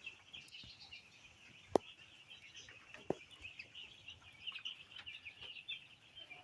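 A flock of broiler chickens chirping and peeping, a dense continuous chatter of many birds. Two sharp clicks sound over it, about two and three seconds in.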